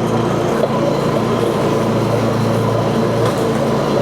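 Grasshopper front-mount mower's engine running steadily under way.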